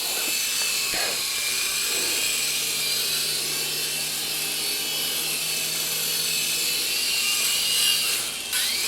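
Small electric rotor motors of two toy infrared remote-control helicopters whirring in flight: a steady high-pitched whine with several wavering tones. Near the end one tone slides upward as a helicopter throttles up.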